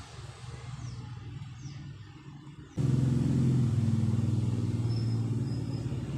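Engine of a motor vehicle running steadily, suddenly getting much louder about three seconds in.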